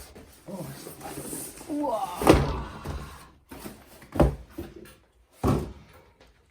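Handling of cardboard packaging: three dull thumps, the loudest about two seconds in, then about two and about three seconds later, with rustling and scraping between them.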